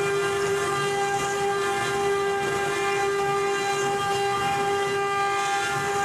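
Spindle of a single-head 1325 CNC router running with a steady high-pitched whine over a constant hiss.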